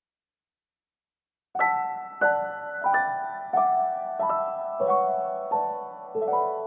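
Background piano music starting about a second and a half in, with a note or chord struck roughly every two-thirds of a second, each one ringing and fading.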